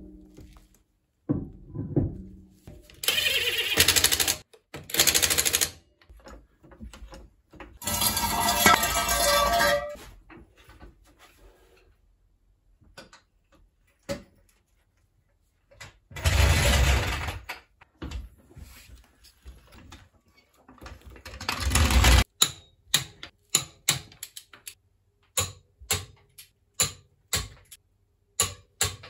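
Cordless impact tool running the wheel nuts on in several short bursts of rapid hammering, a few seconds each, with pauses between. Then a run of sharp ratchet-wrench clicks, roughly one or two a second, as the nuts are snugged down.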